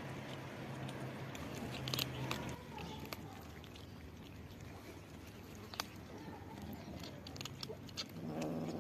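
Kittens crunching dry cat kibble: a steady run of small sharp crunches and clicks as several of them chew at once.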